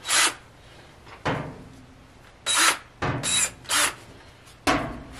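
A run of short scrapes and rubs, about seven in all, as a cordless drill and hands are handled against the sheet-metal back panel of an electric dryer. The drill's motor is not running.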